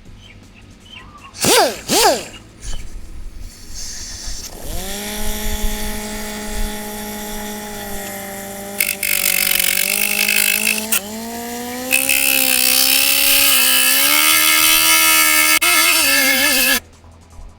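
Air-powered cut-off tool spinning up to a steady whine, then cutting into rusty car-body sheet metal with a loud harsh grinding noise, its whine rising and falling with the load; it stops abruptly near the end. Two short rising-and-falling whines come a couple of seconds in.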